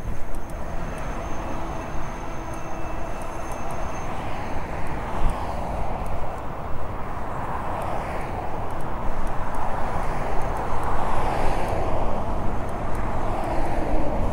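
Wind rushing over the camera microphone, with tyre and drivetrain noise, while riding an electric bike. It swells and eases, growing a little louder in the second half.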